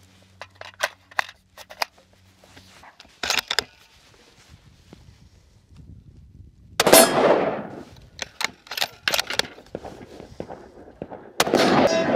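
A .308 Savage 110 Scout bolt-action rifle fires twice, about seven and eleven and a half seconds in. Each shot is a loud sudden crack with an echoing tail, the first the louder. Small clicks and knocks of the rifle being handled come before and between the shots.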